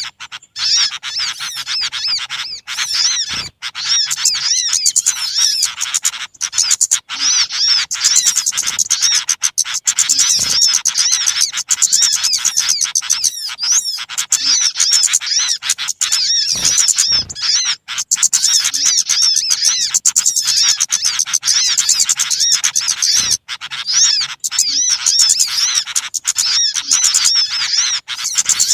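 Loud, dense chorus of small birds chattering and chirping, many rapid high calls overlapping almost without pause: a bird-trapping lure recording of noisy small birds, played to draw wild birds in.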